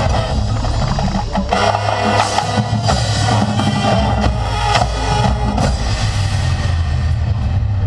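Marching band playing, with drums and percussion strikes prominent.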